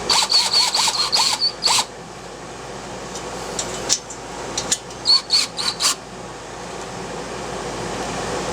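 Cordless drill/driver run in short trigger pulses while driving screws home: about six quick bursts of motor whine, then about five more some three seconds later. The steady hum of an air conditioner runs underneath.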